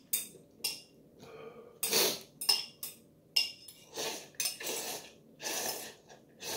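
Metal chopsticks clinking against a porcelain bowl, then several slurps as ramyeon broth is drunk straight from the bowl.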